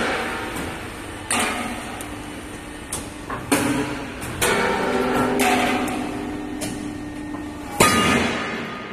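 CNC hydraulic angle-steel punching and cutting machine at work: heavy metal clanks a second or few apart, each leaving the steel ringing, the loudest near the end.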